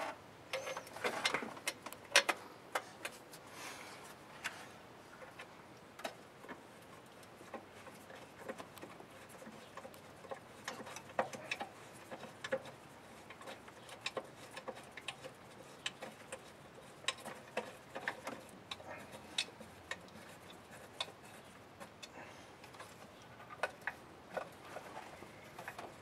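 Faint, irregular clicks and light metallic taps of hand tools and parts being handled in a car's engine bay, with a louder clatter about two seconds in.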